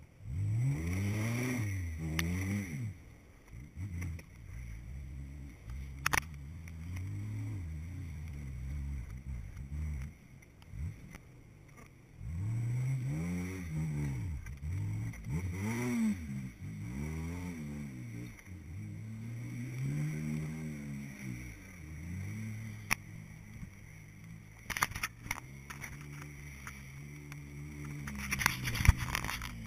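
Four-wheel-drive vehicle's engine revving up and dropping back again and again as it crawls through snow over rocks. A few sharp knocks and scrapes come in, mostly near the end.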